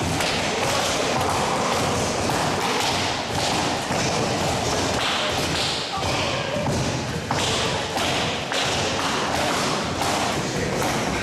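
Karate class training in a dojo hall: a steady run of thumps, thuds and taps from people moving and striking, with a voice now and then.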